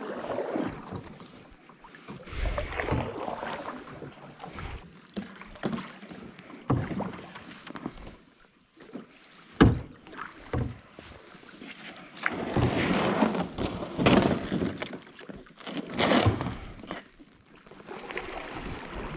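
Canoe on the water: irregular swells of paddle splashing and water noise, with a few sharp knocks against the hull, the loudest about nine seconds in.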